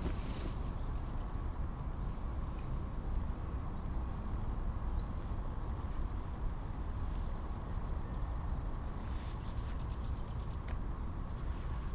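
Outdoor nature ambience: a steady low wind rumble with faint, scattered high bird-like chirps, and a rapid high clicking trill about nine seconds in.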